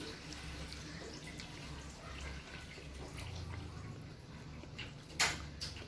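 Faint rustling of hands handling the wires of a UTP network cable, with one sharp click about five seconds in and a smaller one just after it.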